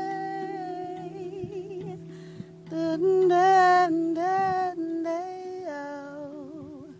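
A woman sings wordlessly, with vibrato and gliding pitch, over the sustained ringing notes of a hand-played steel tongue drum. The voice swells to its loudest about three to four seconds in.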